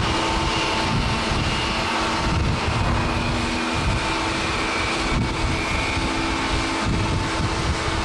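Airbus A350-900's Rolls-Royce Trent XWB jet engines running at high power as the airliner rolls along the runway: a steady noise with a held droning tone. Gusty wind buffets the microphone underneath.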